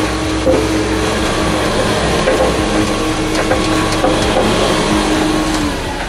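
Rollback tow truck running, its winch whining steadily as it lets the car down the tilted bed; the whine stops near the end.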